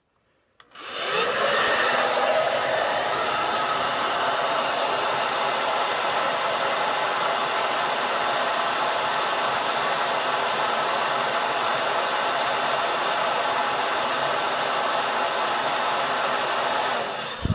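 Handheld hair dryer switched on about half a second in, building up over a second and then blowing steadily, its airflow noise loud and even; it cuts off just before the end.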